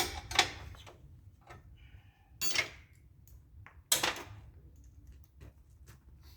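Metal hand tools and parts clinking and knocking: four louder sharp knocks spread over several seconds, with faint ticks between.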